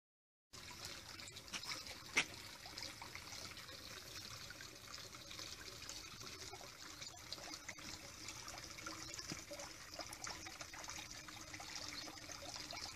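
Water trickling into a garden pond, a faint steady splashing hiss, with a sharp click about two seconds in.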